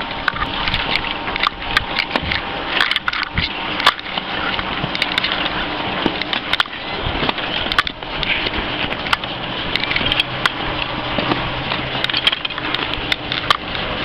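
Skis scraping and shuffling over packed snow, with irregular clicks and knocks of skis and boots clattering.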